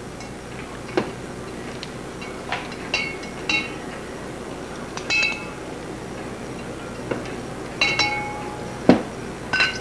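A metal clock plate clinking against the rim of a glass jar of cleaning alcohol as it is lifted out and drained: about nine light, irregular clinks, several of them ringing briefly like struck glass.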